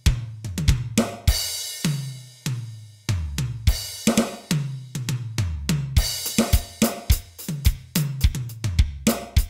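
Electronic drum kit sounds from a Roland TD-8 drum module playing a steady rock beat of kick, snare and hi-hat, with cymbal crashes and pitched tom hits.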